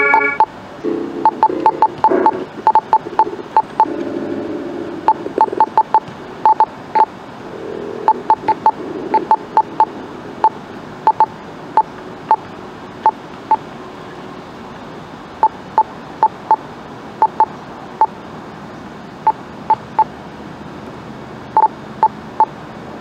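MIDI keyboard playing a bright electronic voice in short, detached high notes, mostly on one pitch, struck singly and in quick runs. In the first ten seconds a few lower notes are held under them; after that only the sparse high notes remain.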